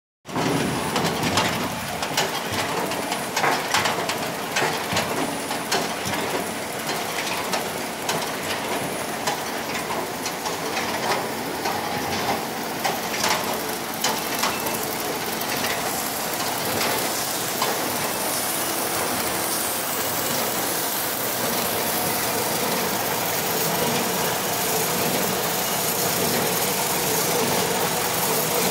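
High-speed side-seal shrink-wrap packaging machine running, its conveyors and sealing mechanism making a steady mechanical clatter. Sharp rapid clicks are frequent in the first half, and the sound settles into a more even running noise later.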